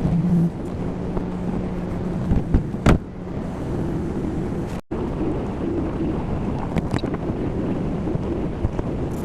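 A vehicle engine running steadily, with wind buffeting the microphone. There are a couple of sharp knocks about three seconds in.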